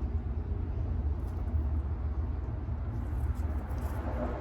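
Steady low background rumble with a faint hiss above it, and a few faint ticks from small parts being handled.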